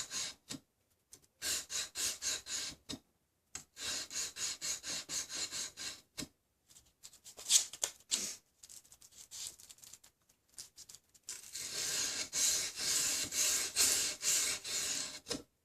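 Sandpaper on a sanding stick rubbing back and forth along a knife blade into the plunge line during hand sanding, in quick strokes of about three or four a second. The runs of strokes break off for short pauses, and the last run goes on without a break for several seconds.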